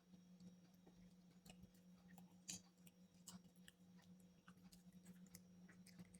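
Faint close-up chewing: a person eating, with scattered small wet mouth clicks, one louder about two and a half seconds in, over a steady low hum.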